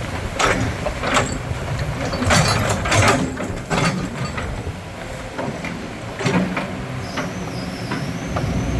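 Kobelco SK200 hydraulic excavator running, its diesel engine giving a steady low rumble under repeated sharp metallic clanks and knocks from the working machine. A faint high whistle comes in near the end.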